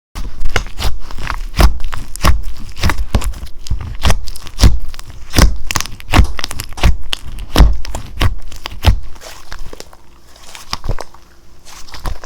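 Slime being squeezed and pressed by hand, giving a quick run of sharp clicks and pops over soft low thuds, several a second, thinning out near the end.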